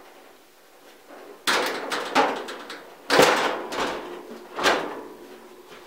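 Housing of a Dyna-Glow 30,000 BTU vent-free gas heater knocking and scraping as it is lifted and hooked onto its wall-mounting bracket. There is a run of clunks, with the loudest about three seconds in.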